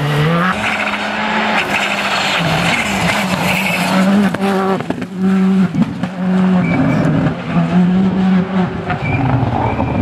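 Škoda Fabia R5 evo rally car's turbocharged 1.6-litre four-cylinder engine at full attack, its note held high and broken by several short drops.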